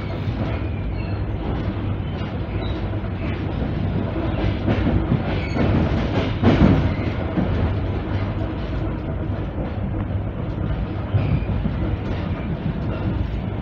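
Cabin noise of an ER9p electric multiple unit running at speed: a steady rumble of wheels on rail with a low hum, and wheels clattering over rail joints, loudest about halfway through.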